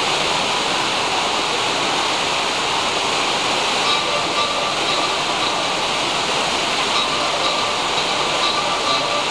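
Steady rushing noise of falling water, even throughout, with faint short tones coming through from about four seconds in.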